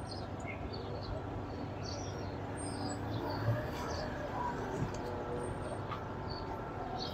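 Outdoor ambience: a steady background hum with voices of people in the background and scattered short, high bird chirps.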